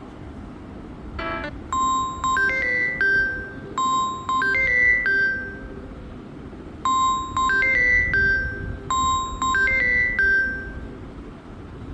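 Samsung Galaxy A03 ringtone playing: a bright chiming melody of bell-like notes. The same short phrase repeats about every five seconds.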